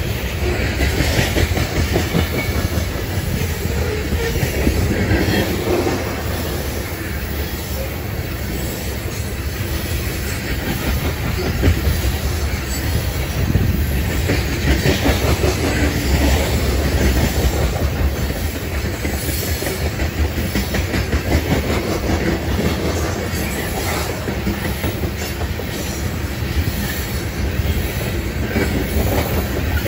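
Loaded coal cars of a freight train rolling steadily past, steel wheels rumbling on the rail and clicking over the rail joints in a running clickety-clack.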